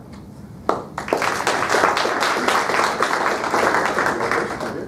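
A group of people applauding with hand claps, starting suddenly under a second in and stopping near the end.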